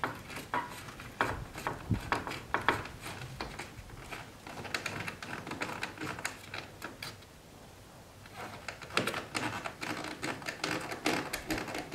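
Irregular clicking and light rattling of a screw being tightened into a Corvette side skirt's rocker-panel mounting, with a brief lull about eight seconds in.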